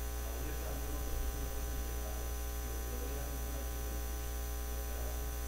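Steady electrical mains hum with a buzz of many evenly spaced overtones, coming through the church's microphone and sound system.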